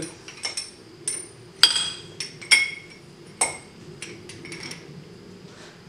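Metal rod clinking against the press plate and bushings as it is worked down through them: a string of sharp, ringing metallic clinks, the three loudest a little under a second apart.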